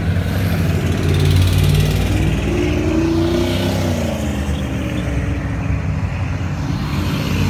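Classic cars driving past with a steady low engine and exhaust rumble. About halfway through, one engine's note swells up and back down as it goes by.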